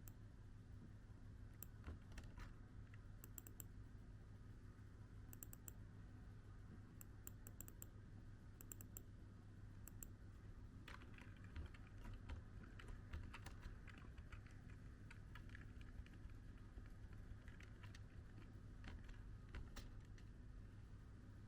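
Faint, irregular clicks and taps in small clusters over a steady low hum.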